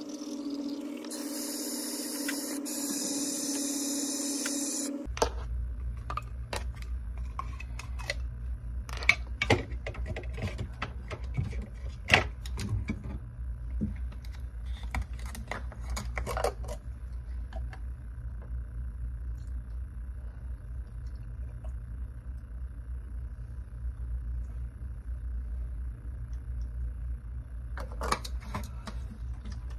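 Sonic electric toothbrush buzzing steadily, cutting off about five seconds in. After that a low steady hum, with scattered clicks and knocks as a plastic mouthwash bottle is picked up and handled, and a quick cluster of clicks near the end.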